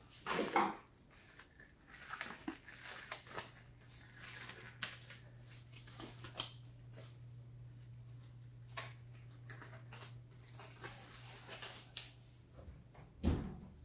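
Disposable rubber examination gloves being pulled on and stretched over the hands: scattered rustles and sharp little snaps, over a low steady hum that stops near the end. A louder thump comes just before the end.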